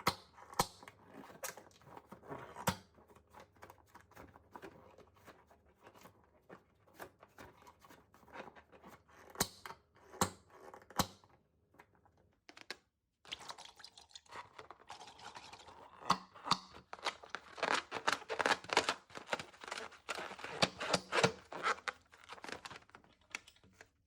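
Slime being handled and mixed by hand: sticky clicks and little pops, sparse at first, then dense crackling and squishing after a short pause near the middle.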